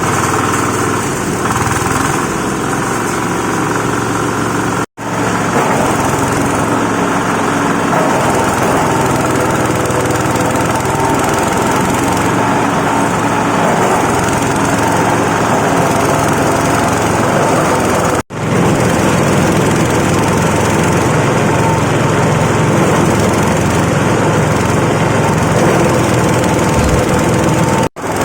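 Coconut husk shredding machine running steadily with a loud, dense mechanical noise, broken off abruptly for an instant three times.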